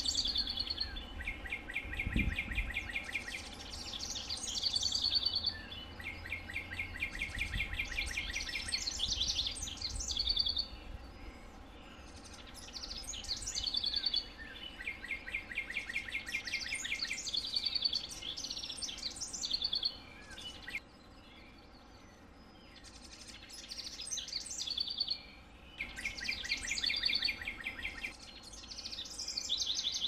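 House wren singing: repeated songs of two to four seconds, each a fast trill of evenly repeated notes mixed with higher twittering notes, coming every few seconds with one longer pause about two-thirds of the way through. A brief low thump about two seconds in.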